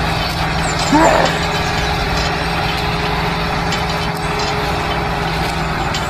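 Small motor of a handmade mini model tractor running steadily with an even hum. A brief voice-like call sounds about a second in.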